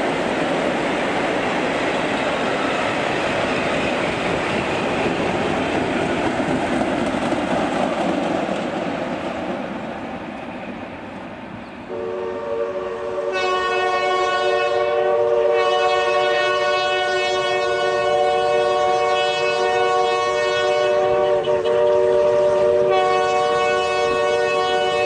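Passenger coaches rolling past with steady wheel noise that fades out. After a cut, a steam locomotive's whistle sounds one long multi-note chord, its upper notes dipping out twice.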